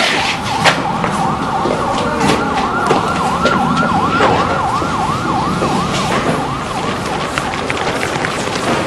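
Police car siren on a fast yelp, rising and falling about three times a second, dying away about six seconds in, with scattered sharp knocks.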